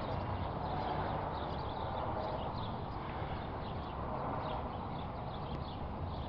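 Outdoor background: a steady rushing noise with faint, short bird chirps scattered through it.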